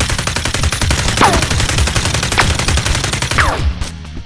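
Rapid automatic gunfire, a dense run of sharp shots, with three short falling whines about a second apart.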